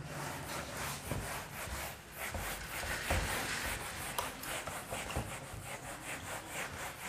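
Duster rubbed over a whiteboard in a run of back-and-forth strokes, a few a second, wiping off marker writing.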